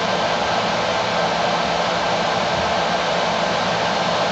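Steady whooshing of the Anycubic Kobra 2 Neo's printhead cooling fans, running because the nozzle is hot.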